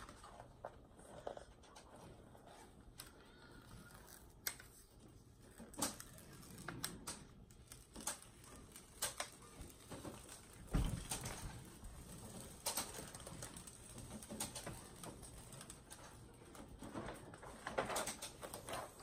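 Protective release paper being peeled back off an adhesive diamond painting canvas and handled: faint crinkling and crackling with scattered sharper clicks and a soft thump about eleven seconds in.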